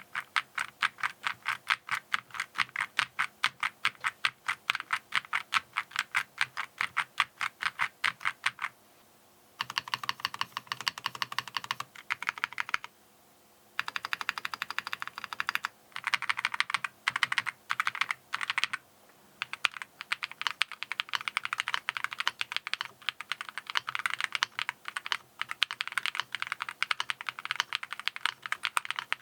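Fast typing on a mechanical keyboard with Akko V3 Cream Yellow linear switches: a dense, clacky run of keystrokes, broken by two brief pauses about nine and thirteen seconds in.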